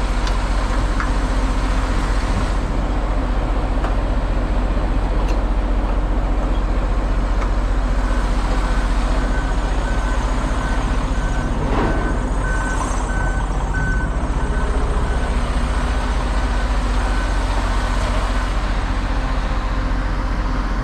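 Semi truck's diesel engine running with a steady low rumble. About midway, a high reversing beeper sounds repeatedly for several seconds.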